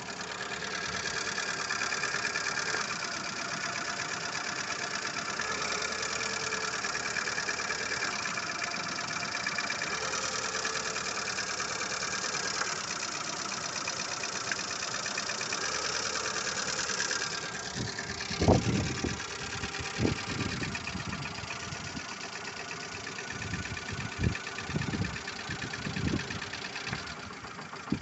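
Lada Largus 1.6 engine idling with a fast, steady ticking clatter from the top of the engine: the hydraulic lifters knocking. In the second half, several heavy low thumps break in, the loudest about two-thirds of the way through.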